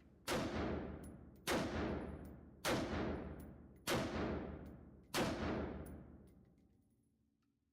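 Sig M400 5.56 rifle fired five times in slow, even succession, about 1.2 s apart, each shot with a long echoing tail.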